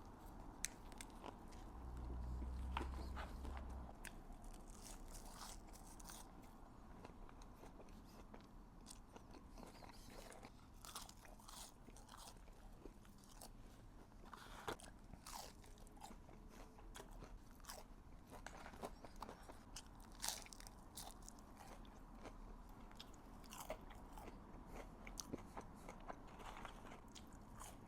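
Close-miked biting and chewing of a Chicken Big Mac burger: irregular crunches and wet mouth clicks throughout, with a brief low rumble about two seconds in.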